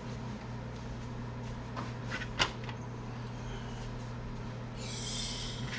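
Fishing rod blank being laid down on a ruler on a wooden bench: a few faint ticks and then one sharp click about halfway through, and a short scraping hiss near the end, over a steady low hum.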